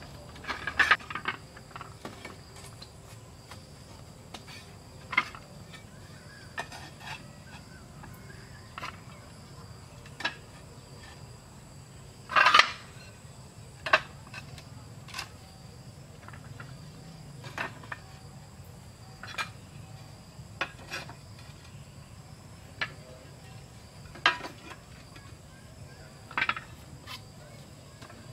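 Clay roof tiles clacking and clinking against each other as they are picked up from a stack and laid on a small roof frame: scattered sharp knocks every second or two, the loudest about halfway through.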